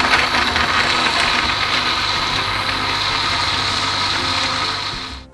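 Ottimo countertop blender's motor running steadily as it purées tomatoes, ginger and garlic with a little water, then switching off about five seconds in.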